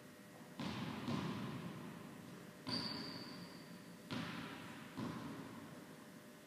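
Tennis ball bouncing on an indoor court, five separate thuds at uneven intervals, each echoing in the large hall.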